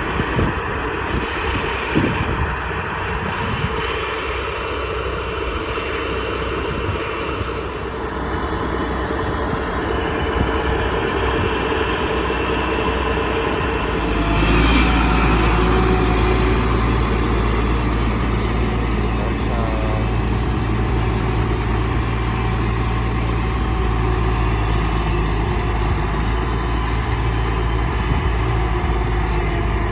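Rice combine harvester's engine running steadily, growing louder and heavier about halfway through.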